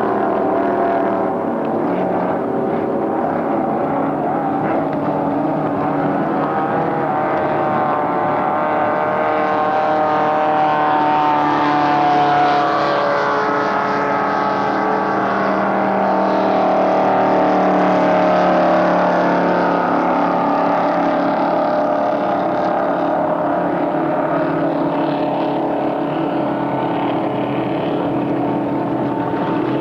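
Racing powerboat engines running at speed as the boats pass. Several engine notes overlap, their pitch drifting up and down, swelling louder through the middle.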